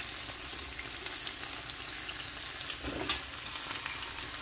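Sausage and rice-cake skewers frying in red sauce in a square nonstick pan on a gas burner: a steady sizzle with scattered small crackles, a little louder about three seconds in.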